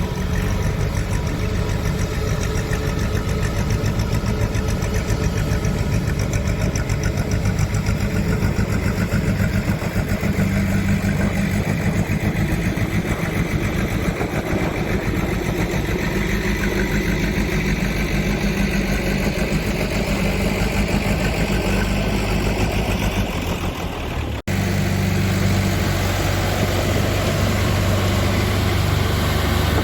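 Road roller's diesel engine running steadily with a low, even throb. About three-quarters of the way through the sound cuts off abruptly and resumes at once with a deeper, heavier hum.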